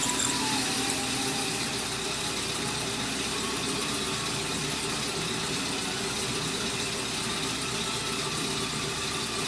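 Loud knocks in the first second, then a shop machine tool cutting a motorcycle cylinder runs with a steady hum.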